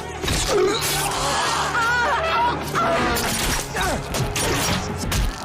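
A television drama's soundtrack of a violent massacre scene: music with repeated crashes and sharp impacts, mixed with wavering cries.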